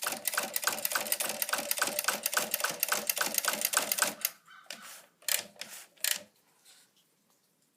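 Remington Suburbanite portable typewriter being typed on: a fast, even run of key strikes, about five a second, for about four seconds. A few separate clacks follow.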